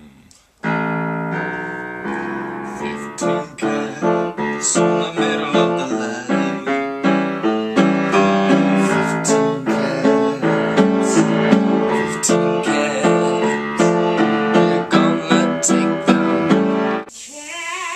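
Keyboard music with many quick notes, starting suddenly just under a second in and stopping shortly before the end, when a short wavering pitched sound follows.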